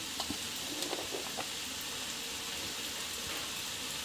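Noodles and vegetables sizzling gently in hot oil in an iron wok: a steady hiss, with a few faint crackles in the first second and a half.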